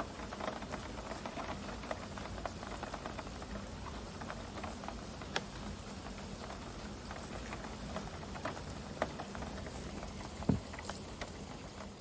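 Rain pattering, with many small irregular drop ticks over a steady wash, and one louder knock about ten and a half seconds in.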